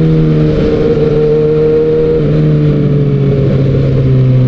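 Kawasaki Ninja ZX-6R's inline-four engine running through an SC Project exhaust under way, holding a fairly steady engine speed that eases down a little in the second half.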